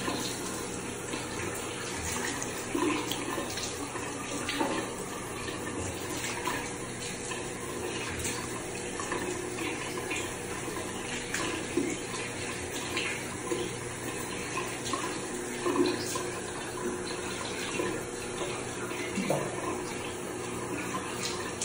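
Water running from a bathroom tap into a sink, with small irregular splashes as a face is rinsed by hand.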